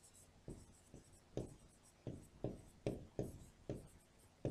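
A pen writing on an interactive board: a run of short, quiet taps and strokes, about two or three a second.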